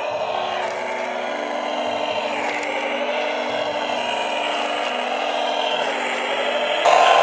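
Electric motor and gear train of a CrossRC HC6 6x6 RC scale truck whining steadily as it crawls at low speed, getting suddenly louder near the end.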